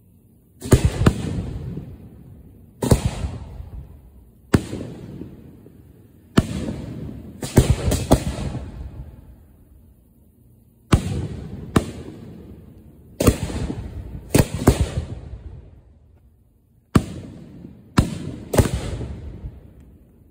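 Display firework aerial shells fired from mortar racks close by. About fourteen sharp booms come at irregular intervals, some in quick pairs, and each fades away over a second or two.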